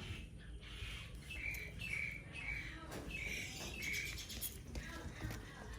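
A run of short, high chirping calls, about five of them roughly half a second apart, over a steady low background rumble.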